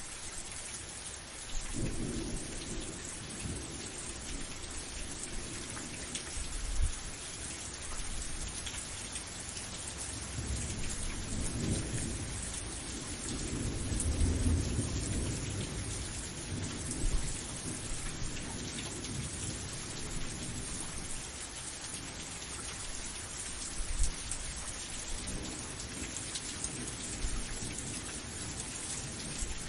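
Steady rain hissing, with thunder rumbling low several times: once a few seconds in, longest and loudest around the middle, and again near the end.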